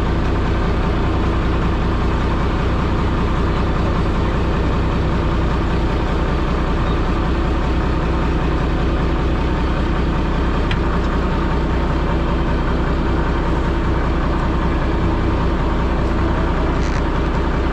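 Fishing boat's inboard engine running steadily while the net is winched aboard, a constant low drone.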